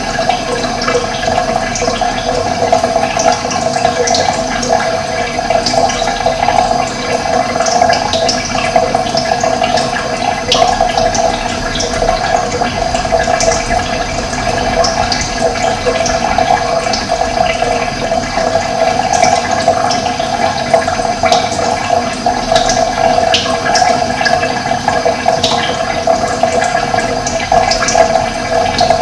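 Running water flowing steadily, with birds chirping in short, high calls scattered throughout.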